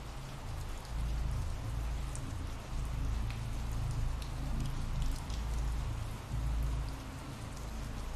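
Steady rain: an even hiss with scattered drops ticking, over a low rumble that rises and falls.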